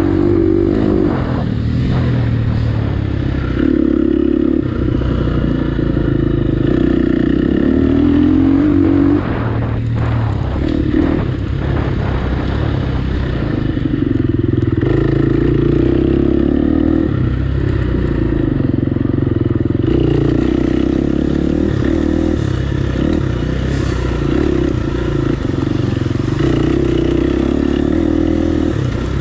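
Off-road dirt bike engine running under way on a trail, holding steady throttle for long stretches with short eases and pick-ups, most clearly around ten seconds in.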